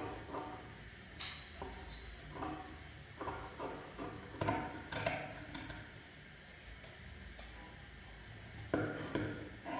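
Irregular light knocks and clicks, as of small hard objects being handled and set down, with a brief high ping a little over a second in.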